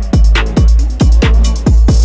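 Background electronic music: loud, deep bass drum hits, a few a second, each dropping sharply in pitch, over a steady sub-bass.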